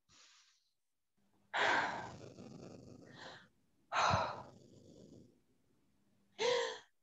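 A person breathing deeply and heavily close to the microphone: three long breaths a couple of seconds apart, the last ending in a short voiced sigh.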